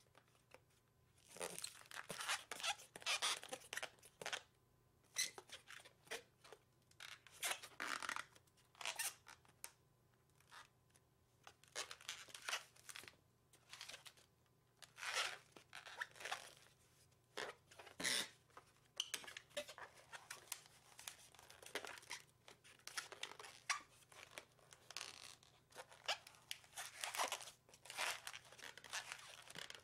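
Inflated 260 latex modelling balloon being twisted and worked by hand: irregular bursts of latex rubbing and twisting noise, on and off, beginning about a second and a half in.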